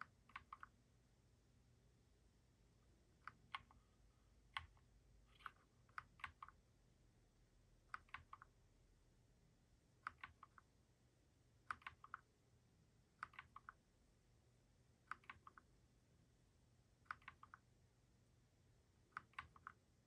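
Wombat Coleus mechanical keyboard keys clicking in short clusters of two or three presses about every two seconds, as Fn and a lighting key are pressed together to step through the RGB backlight modes.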